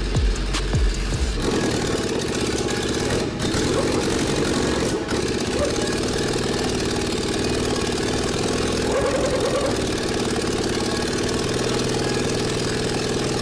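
Four-cylinder four-stroke engine fitted with rubber piston rings, running steadily at an even speed. Background music fades out about a second and a half in.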